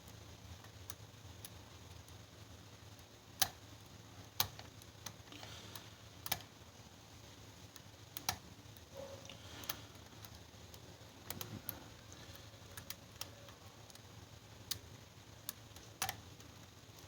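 Faint, irregular metallic clicks and ticks of a lock pick and tension wrench working the pins of a five-pin Kaba Ilco zinc mortise cylinder, about a dozen sharper clicks spread unevenly among quieter scraping.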